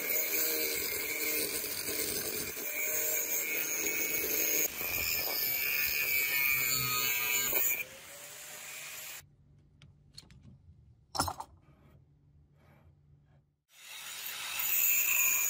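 Angle grinder's cut-off disc grinding into a rusted steel bearing's outer race, a loud, steady, high-pitched screech. It stops about eight seconds in. After a quiet stretch with one sharp knock, the grinder starts up and cuts again near the end.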